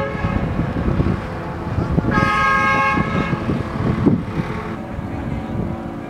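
Vietnamese bamboo kite flutes (sáo diều) humming overhead: a steady horn-like chord of several tones, with a brighter, higher tone swelling about two seconds in and fading a second later, over a low rumbling noise.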